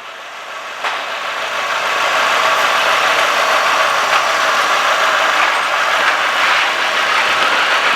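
Renault Sandero 1.6 8V four-cylinder engine idling steadily, growing louder over the first couple of seconds, with a small click about a second in. It is running smoothly now that new spark plugs and cleaned injectors have cured a slight misfire.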